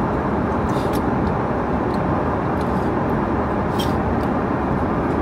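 Steady cabin noise of an Airbus A330-300 airliner in flight: an even rush of engine and airflow noise, with a few faint light clicks.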